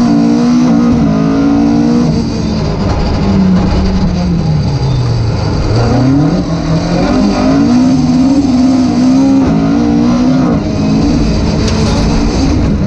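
Rally car engine heard from inside the car, running hard at high revs, then falling away steeply about four seconds in as the car slows for a junction, and revving back up as it accelerates out onto the straight.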